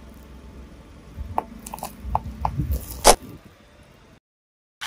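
A car tyre rolling over small objects and crushing them: a low rumble from the car, then a run of sharp cracks from about a second in, the loudest about three seconds in.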